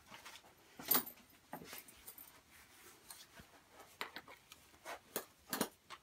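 Leather belt and holster rig being handled and put on around the waist: leather rustling with scattered clicks and clinks of metal hardware, the loudest about a second in and near the end.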